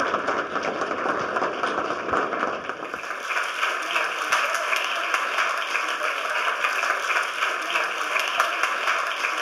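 Audience applauding, a dense steady clatter of many hands clapping. About three seconds in, the applause turns thinner and brighter.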